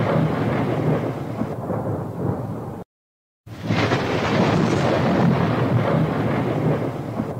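Controlled demolition of the Supertech twin towers: the long, rolling rumble of a high-rise tower collapsing. It drops out for about half a second near the middle, then comes back in suddenly and loud and slowly fades.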